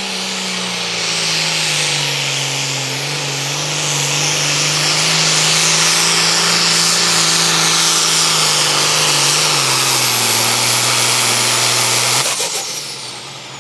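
Modified John Deere 4440 Super Farm pulling tractor's turbocharged diesel running flat out under sled load, with a loud high hiss over the engine note. The engine note drops in steps as the tractor pulls, then cuts off sharply about twelve seconds in as the throttle is lifted at the end of the run, leaving a high whistle falling away.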